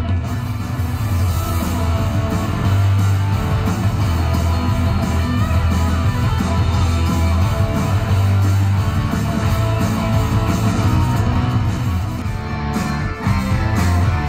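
Live rock music from a stage show: electric guitar over a strong, steady bass line, played loud through a theatre's hanging loudspeakers. The music dips briefly near the end.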